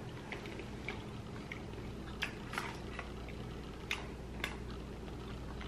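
People chewing a soft, chewy caramel-and-hazelnut chocolate candy: small wet mouth clicks now and then over a steady low hum.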